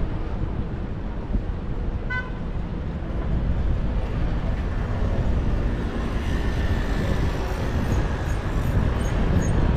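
Steady low outdoor rumble of wind and traffic noise, with one short, high-pitched toot about two seconds in.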